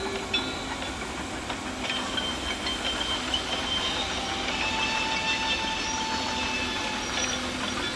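Volvo excavators at work: engine running steadily under metallic squeals and clanks, with high squealing tones held for a second or two through the middle.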